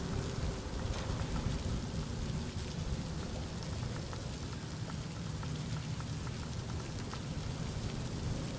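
Steady outdoor noise: wind rushing and buffeting on the microphone, with faint scattered ticks.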